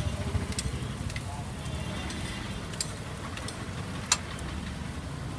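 Metal spatula clicking a few times against a flat griddle of cooking parottas, over a low steady rumble.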